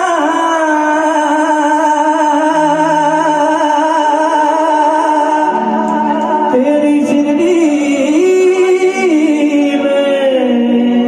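Male singer performing a bhajan live through a stage sound system, holding one long drawn-out note for about five seconds, then moving through several other sustained notes.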